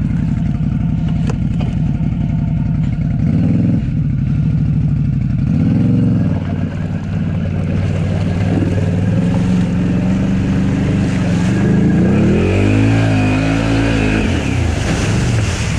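Can-Am Outlander 850 XMR's V-twin engine running hard, revving up and dropping back several times: short surges a few seconds in and around six seconds, and a longer one near the end.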